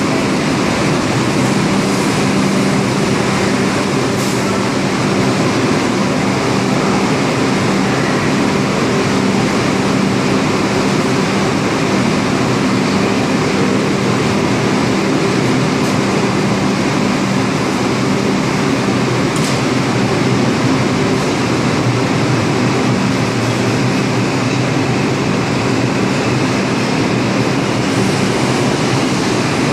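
R142 subway train standing at the platform with its doors open, its air-conditioning and auxiliary equipment giving a steady hum over a constant rushing noise, with a few faint clicks.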